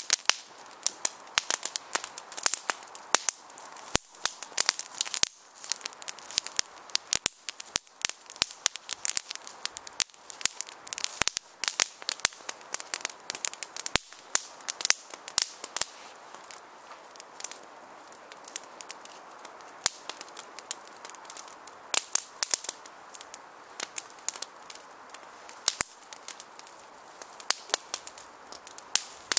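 Small kindling fire of split wood sticks crackling and popping, with many sharp snaps a second over a soft, steady hiss.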